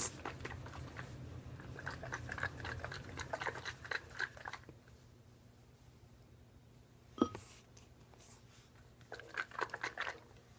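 A capped plastic glue bottle holding hot water and leftover gel glue being shaken to loosen the glue: irregular sloshing and plastic rattling for the first few seconds, one sharp click about seven seconds in, then another short burst of shaking near the end.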